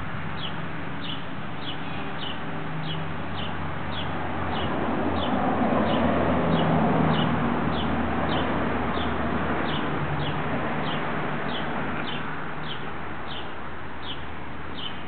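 Steady traffic rumble of a city street that swells and fades around the middle, with a short, high, falling chirp repeated evenly about three times every two seconds.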